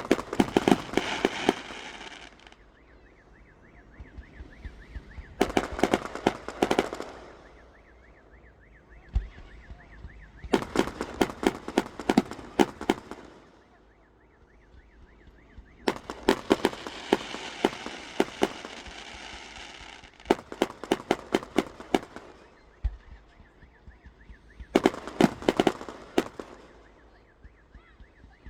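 Fireworks going off in about six bursts a few seconds apart, each a rapid run of sharp cracks and bangs.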